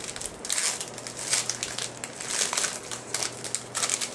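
A baseball card pack's wrapper being torn open and handled, an irregular crinkling and crackling that stops near the end.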